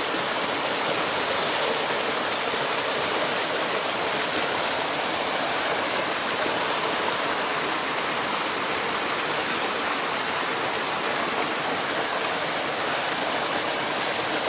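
Mountain stream flowing, a steady, even rush of water that does not change.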